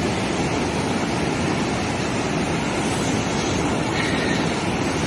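Fast-flowing floodwater rushing in a steady, even noise: a swollen muddy river surging past and pouring over an embankment wall.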